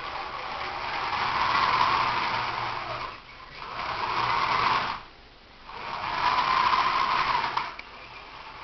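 The drive motors of a model's Voith Schneider propellers whirring in three bursts of a couple of seconds each, with short pauses between them.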